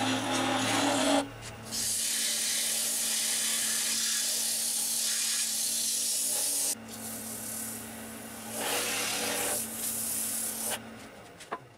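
Wood lathe running with abrasive paper and a sanding pad held against the spinning wood-and-resin workpiece: a steady hissing rub for about five seconds, a short lull, then another couple of seconds of sanding over the lathe's steady hum.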